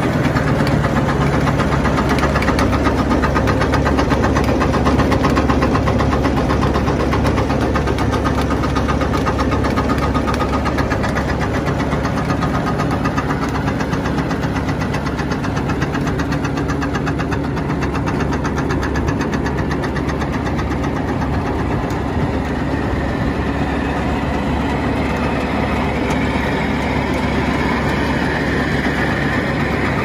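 Tractor engine running steadily at idle, with a fast, even firing beat.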